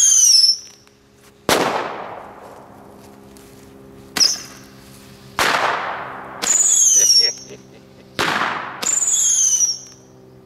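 Hand-held roman candle firing shot after shot. Each launch gives a short whistle that falls in pitch, and a sharp bang that trails off follows a second or so later: four whistles and three bangs in all.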